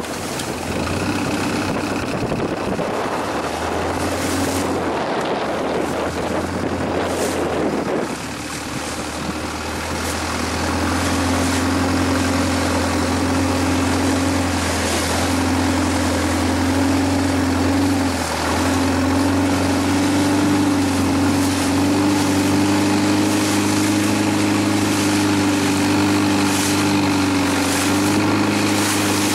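Longtail boat engine running steadily under way, with rushing water noise over it for the first several seconds. The engine hum grows louder about ten seconds in.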